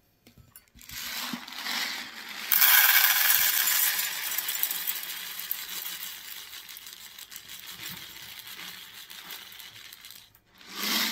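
Unpopped popcorn kernels poured from a bag into a stainless steel measuring cup: a dense rattle of kernels hitting metal, loudest a couple of seconds in and growing softer as the cup fills.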